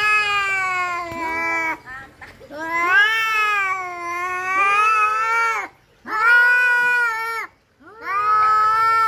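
Orange tabby cats yowling in a hostile standoff: four long, wavering, drawn-out howls with short breaks between them, the last still going at the end.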